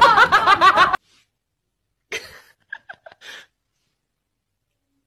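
A person laughing in quick, high-pitched giggles for about a second, cut off abruptly. A few faint short sounds follow.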